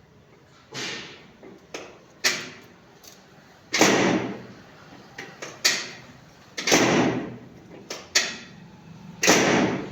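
A series of seven or so sharp thumps at irregular intervals, about one to one and a half seconds apart, each trailing off in a brief rushing noise.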